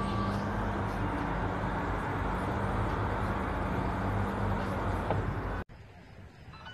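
Steady low engine hum over a broad traffic rumble, cutting off abruptly near the end.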